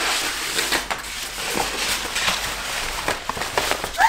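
Protective paper wrap being peeled off an iMac's screen, crinkling and rustling with many small sharp crackles.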